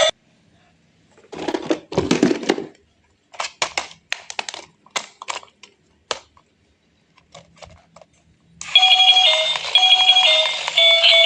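Background music cuts off at the start, followed by a run of short clicks, knocks and rattles of small objects being handled, with a few quiet gaps. The upbeat music comes back about eight and a half seconds in.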